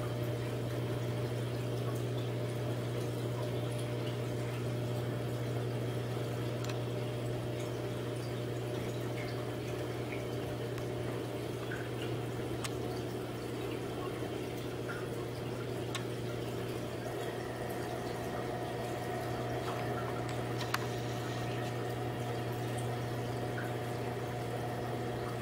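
Reef aquarium's water pump running with a steady hum, over the even sound of circulating water, with a few faint ticks. A higher steady tone joins about two-thirds of the way through.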